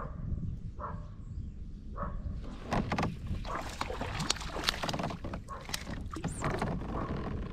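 Small hooked bass thrashing and splashing at the water's surface beside a kayak as it is reeled in and lifted out. A busy run of sharp, irregular splashes begins about two and a half seconds in.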